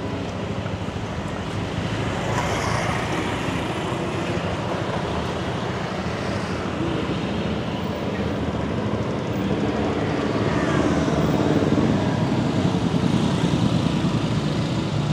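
Steady road traffic passing, with a vehicle going by closer and louder about three-quarters of the way through.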